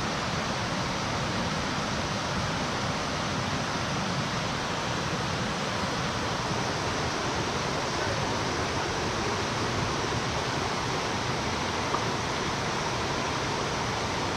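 Steady rush of a mountain stream's running water, an even unbroken noise.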